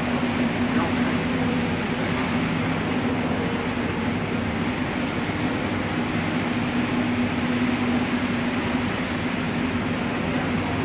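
Steady drone of a bus engine heard inside the cabin, with a constant hiss of heavy rain and tyres on the wet road.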